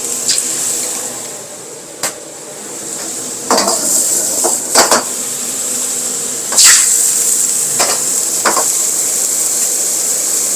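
Food sizzling in a hot wok while being stir-fried, with a metal utensil scraping and knocking against the wok about six times at uneven intervals. The sizzle grows louder about three seconds in.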